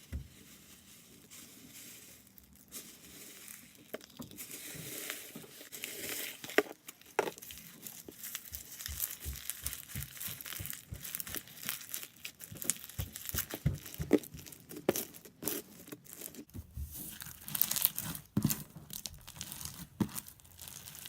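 Sticky homemade slime packed with foam beads being squished and kneaded by hand: a dense, irregular crackling and popping, sparse at first and busier after the first few seconds.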